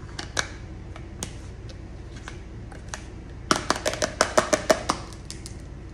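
Fingernails tapping on the lid of a Nivea Creme jar: a few scattered taps, then a quick run of about ten taps about three and a half seconds in.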